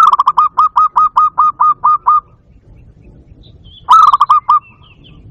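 Barred dove (bato-bato) calling: a quick run of about a dozen short, staccato cooing notes lasting about two seconds, then a shorter run of about six notes nearly four seconds in.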